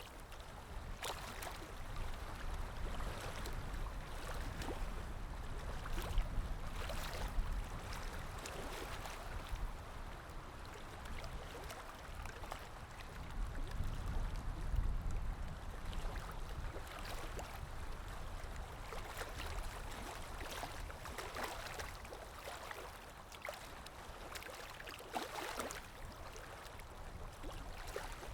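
Canaries bathing in a shallow water bath, splashing in a run of short, irregular splashes.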